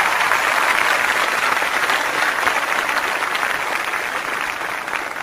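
Crowd applauding: dense clapping from many hands, steady throughout and easing off slightly toward the end.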